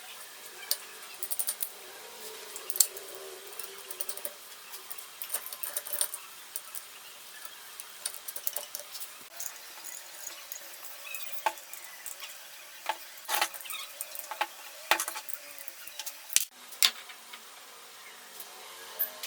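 Irregular light clicks and clinks of small hard objects being handled, over a faint steady hiss.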